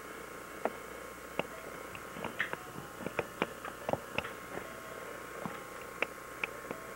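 Small plastic toy pieces being handled: a run of irregular sharp clicks and taps, about a dozen, over a faint steady hum.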